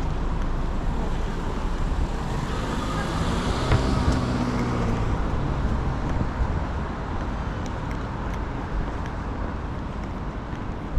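Road traffic on a wet city street: a vehicle passes close by, its engine hum and tyre hiss swelling about three to four seconds in and then fading into the steady traffic noise.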